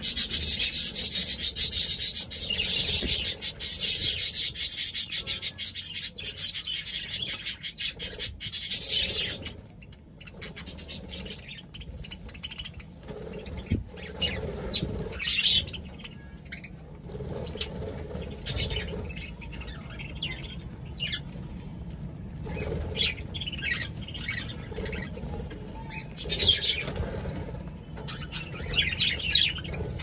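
Caged budgies and a cockatiel: about nine seconds of dense, rapid scratchy rustling and chatter, then scattered short chirps and squawks.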